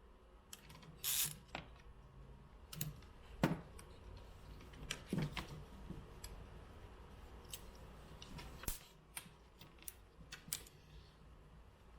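Scattered clicks and taps of small plastic and metal parts being handled while a soundbar's ground cable and board are fitted back into its housing, with a few sharper knocks about three and a half, five and nearly nine seconds in.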